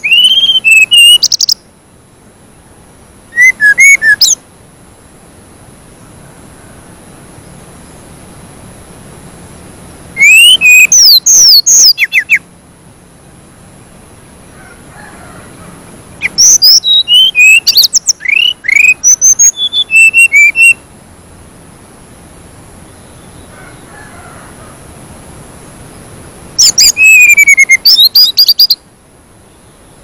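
A small songbird singing loud, rapid phrases of high gliding whistles and trills. There are five phrases, each lasting one to four seconds, with pauses of several seconds between them. A faint steady high-pitched tone runs underneath.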